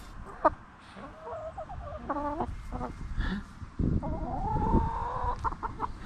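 Backyard hens clucking around a person with a bowl of treats: several short clucks, then a longer drawn-out call about four seconds in.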